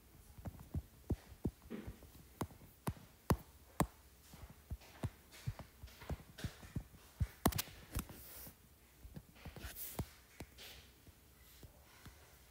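Stylus and fingertips tapping on a tablet's glass screen: irregular light clicks, often several a second, with a few soft brushing swishes of strokes across the glass.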